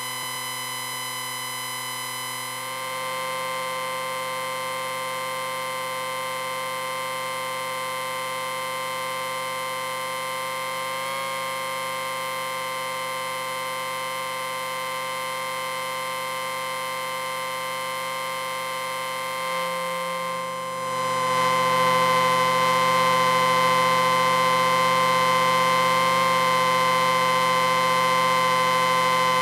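Amplifier beeping: a steady electronic tone held without a break, several pitches sounding together like a drone. It changes slightly about three seconds in and gets clearly louder about twenty-one seconds in.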